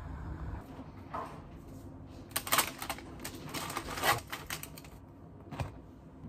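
Crisp clicks and crackles from the crust of a freshly baked, still-hot ciabatta, in quick runs for about two seconds in the middle, then a single soft knock near the end.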